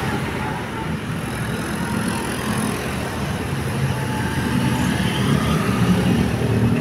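Road traffic noise: a passing vehicle engine, its low hum growing louder over the last couple of seconds.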